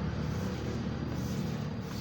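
Steady low rumble with a faint constant hum underneath.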